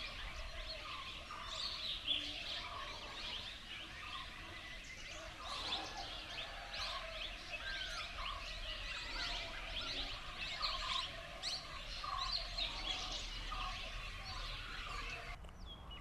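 Many wild birds calling at once: a dense chorus of overlapping high chirps with repeated shorter, lower notes running through it.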